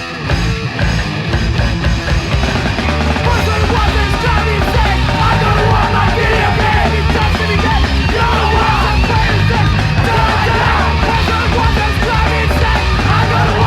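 Thrashcore song played by a full rock band, with yelled vocals coming in over the instruments.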